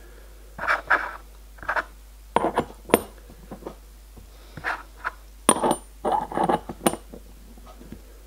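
Brass cylinder covers and a steel cylinder block being handled: a scattered run of short metal clinks and knocks, a few with a brief high ring, as the covers are set down onto the block.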